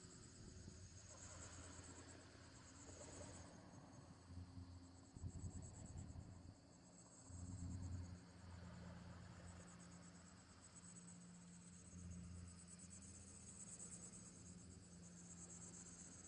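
Faint insects chirping in a high, rapidly pulsing trill that swells and fades several times, over a low steady hum.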